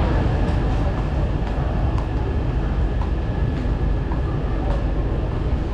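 Guangzhou Metro train running: a steady, loud rumble with a faint, high, even whine above it.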